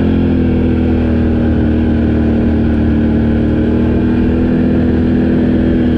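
Off-road vehicle engine running at a steady cruising speed while riding, one even pitch throughout, with road and wind noise.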